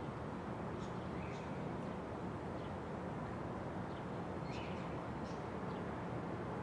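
Steady outdoor background noise with a few faint, brief bird chirps.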